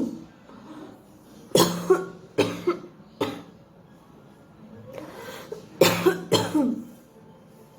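A woman coughing deliberately in two runs of short, sharp coughs: a string of several about a second and a half in, then three more near the end after a pause. The coughs are forced, with no phlegm coming up and none of the earlier rattle, because her cold has cleared.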